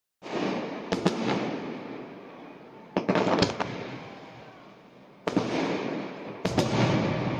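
Aerial fireworks bursting: a series of sharp bangs a second or two apart, each followed by a rumble that slowly fades.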